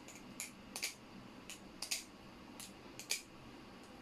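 Ryworx Setsuna balisong (butterfly knife) being flipped: an irregular run of sharp metallic clicks as the handles swing and strike closed.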